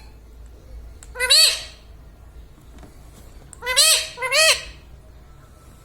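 Pet parrot giving three short squawking calls, each rising and then falling in pitch: one about a second in and a close pair near four seconds.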